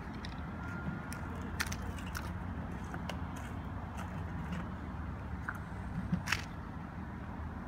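Light clicks and knocks of handling over a steady low background rumble: a steel trowel set down by a plastic bowl of mortar, then the plastic screw cap of a jerrycan twisted off, the sharpest click about six seconds in.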